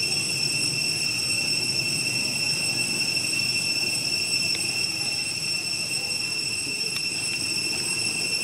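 Steady, high-pitched drone of cicadas in the surrounding forest, with a few faint ticks partway through.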